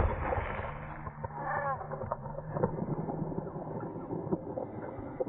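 The tail of a shotgun blast played back in slow motion, pitched down: a sharp crack at the start, then a long, low rumbling echo with scattered crackles and a brief warbling sound about a second and a half in.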